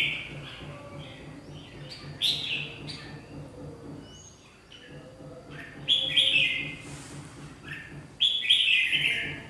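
Red-whiskered bulbuls calling: four loud bursts of quick chirps, some sweeping downward, with softer chirps between them.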